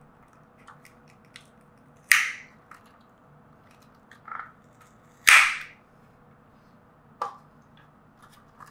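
Sharp plastic cracks and clicks from hands working on the Axial SCX24 Bronco's small plastic chassis while pulling out the stock ESC: two loud cracks about three seconds apart, with a few fainter clicks between and after.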